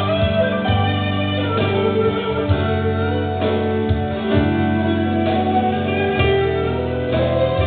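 Live music played on an electronic keyboard: held chords, with a new chord struck about once a second.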